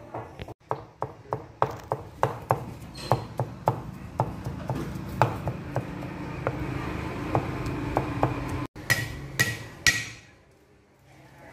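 Meat cleaver chopping fried pork on a thick wooden chopping block, in steady knocks about three a second. After a short break come three louder, sharper blows as the cleaver comes down on garlic cloves.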